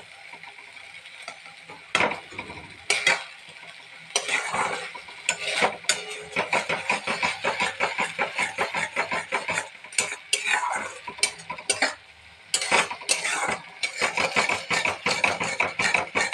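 A metal spatula scraping and clattering against a metal wok as thick vermicelli kheer is stirred briskly, with the syrup sizzling underneath. The stirring pauses briefly about twelve seconds in.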